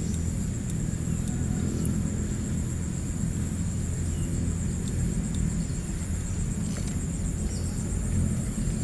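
Steady low rumble with a continuous high, pulsing drone of insects over it, and a few faint clicks.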